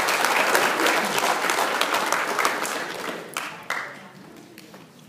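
Audience applauding, dying away about three seconds in to a few last scattered claps.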